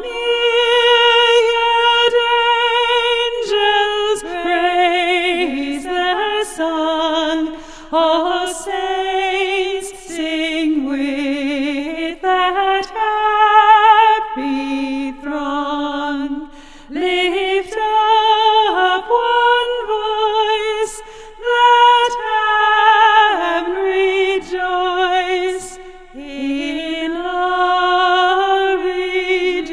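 A solo voice singing a slow hymn unaccompanied, in long held notes with vibrato and short breaths between phrases.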